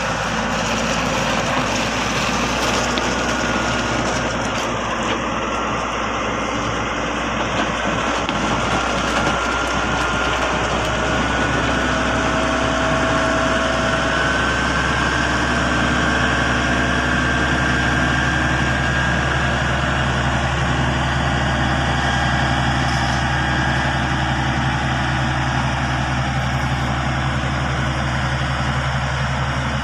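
Komatsu GD555 motor grader's diesel engine running steadily as the machine creeps forward, its blade spreading crushed-stone aggregate, with a broad gravelly hiss over the engine tone.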